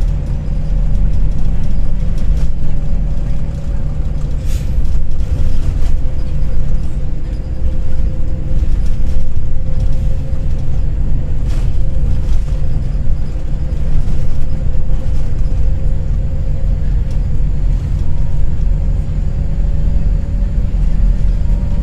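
A coach running, heard from inside its cabin: a loud steady low rumble of engine and road, with a faint steady hum above it. Two short knocks, about a fifth and halfway through.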